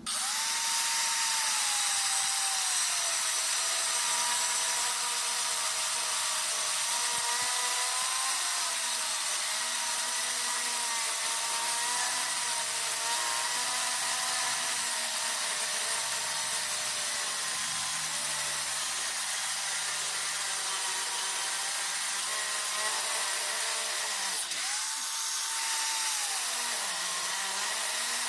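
Electric angle grinder starting suddenly and grinding steel, with a loud high hiss and a motor whine that sags in pitch as it bears on the work and recovers, dipping deepest near the end.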